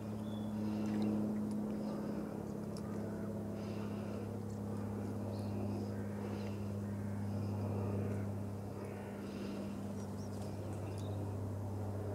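Steady low hum of a distant engine, holding one pitch throughout, with faint scattered high ticks over it.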